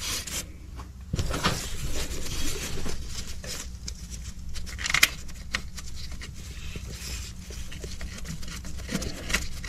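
Hand tools and parts being handled during repair work: scattered clicks, light taps and rustling, with a sharper click about five seconds in.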